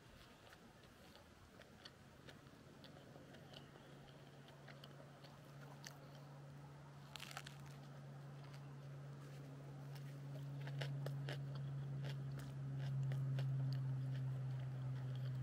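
Someone biting into and chewing a sandwich: scattered small crunches and mouth clicks. A low steady hum comes in about two seconds in and grows louder through the rest.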